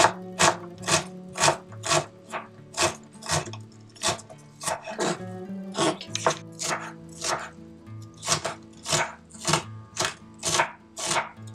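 Kitchen knife chopping on a wooden cutting board in a steady rhythm of about two chops a second, dicing an onion and then a green pepper. Soft background music with a guitar runs underneath.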